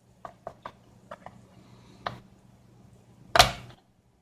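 Light plastic clicks and taps as a DDR4 SO-DIMM RAM module is handled and pushed into a laptop's memory slot, then one sharper, louder click about three and a half seconds in as it seats.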